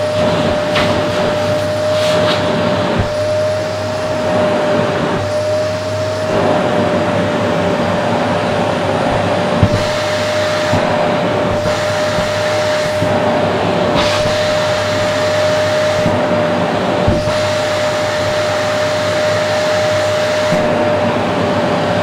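Vacuum cleaner running steadily with a constant motor whine, the open end of its hose sucking at a pillow and a fleece blanket. The rushing hiss of the air rises and falls as the fabric covers and uncovers the hose end, with a short knock about ten seconds in.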